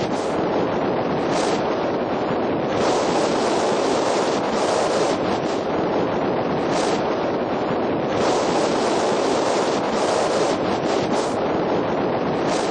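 Strong wind blowing over the microphone: a loud, steady rushing noise that swells and eases in gusts every second or two.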